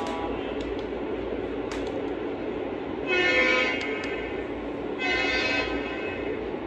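Lionel O-gauge model trains rolling steadily around the track, with two blasts of a model locomotive's electronic diesel horn: a longer one about three seconds in and a shorter one about two seconds later.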